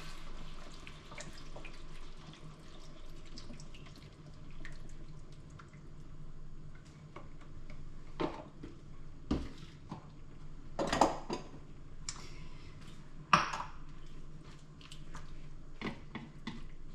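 Chicken mince filling with freshly added stock in a frying pan, bubbling faintly while a wooden spoon stirs and scrapes through it. Several sharp knocks and clinks stand out, the loudest about 11 and 13 seconds in, over a steady low hum.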